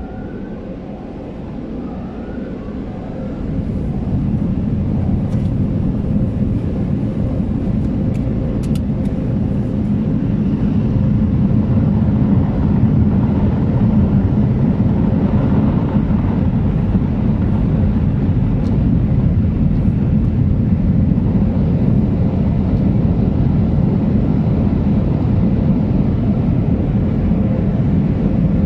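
Automatic car wash air-dryer blowers running, a steady loud rushing that swells in over the first few seconds, heard from inside the car's cabin.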